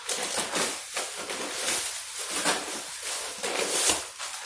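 Plastic bags rustling and crinkling unevenly as clear plastic packs of raw kerupuk crackers are pulled out of a black plastic bag inside a cardboard box.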